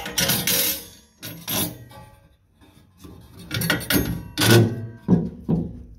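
Small metal hardware clinking and clattering against a sheet-metal license plate box as bolts capped with valve stem caps are fitted through it: a few short knocks with brief metallic ringing near the start, and another cluster around four seconds in.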